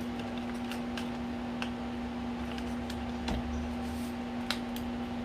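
Scattered light clicks and taps of plastic parts of a copier drum unit being handled and fitted back into place, over a steady low hum.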